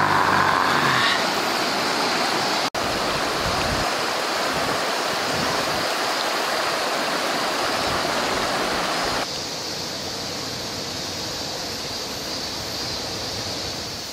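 Shallow, rocky river rushing and rippling over stones: a steady wash of flowing water. It cuts out for an instant about three seconds in and is a little quieter from about nine seconds on.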